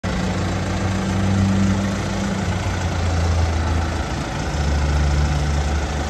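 JCB 214 Series 3 backhoe loader's four-cylinder diesel engine idling, a steady low hum that shifts lower in pitch twice.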